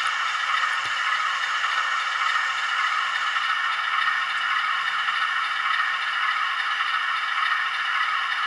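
Tsunami sound decoder in an HO-scale Amtrak GE diesel locomotive model, playing a steady diesel idle through the model's small speaker, with little bass.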